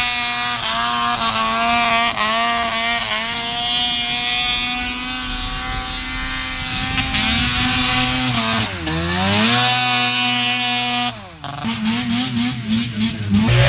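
Prototype Redline snowmobile engine running at steady revs, its pitch falling and climbing back about nine seconds in. About eleven seconds in the revs drop sharply and the engine goes uneven and choppy on and off the throttle.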